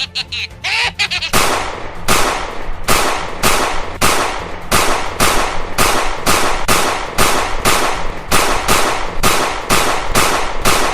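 A quick rattle of clicks, then a long, very regular series of sharp noisy bangs, about three a second, each dying away quickly: a repeated sound effect like gunfire or firecrackers.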